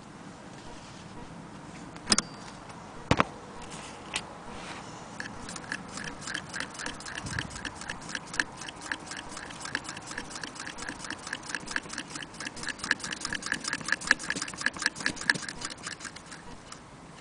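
Antique Willcox & Gibbs chain-stitch sewing machine sewing through fabric as its handwheel is turned by hand: a fast, even run of mechanical clicking, one click per stitch. Two sharp clicks come before the stitching starts.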